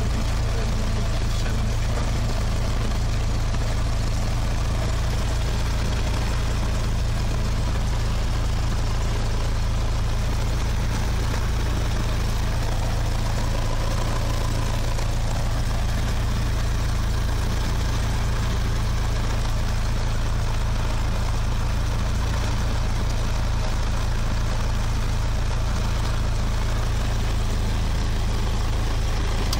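Single-engine light aircraft's piston engine and propeller idling steadily, heard from inside the cockpit.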